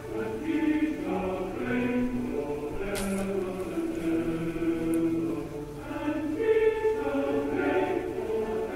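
Choral chant: several voices singing long held notes that move slowly from chord to chord, with a brief click about three seconds in.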